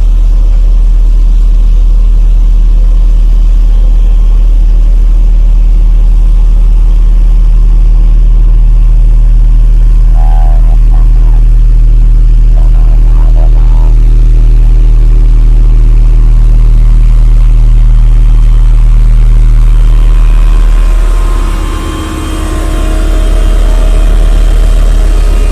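Cummins four-cylinder diesel of a Hamm 311 vibratory smooth-drum roller running steadily with a deep, even hum, heard close. About 21 seconds in the hum changes in tone and the level briefly dips, then the machine runs on.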